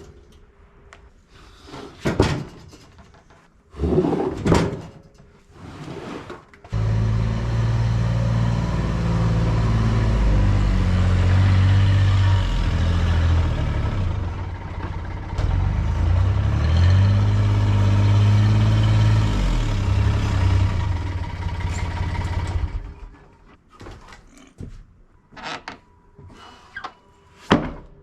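Several wooden knocks and thuds, then an engine runs steadily for about sixteen seconds, its pitch sagging and coming back up once near the middle, and stops. More knocks follow near the end.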